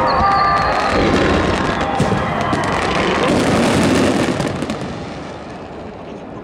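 Aerial fireworks in a dense finale barrage: a continuous mass of booms and crackling bursts that dies away after about four seconds, leaving scattered crackles.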